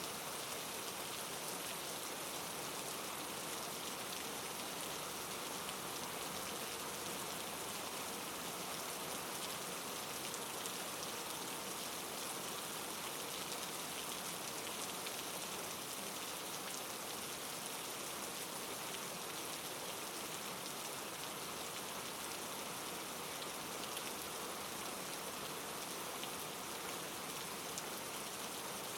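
Steady rain falling, a constant hiss with faint scattered drop ticks.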